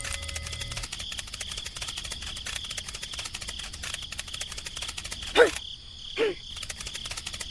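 Steady insect trilling, a dense rapid pulsing with a high ringing tone. Two short louder sounds cut in a little past halfway, less than a second apart.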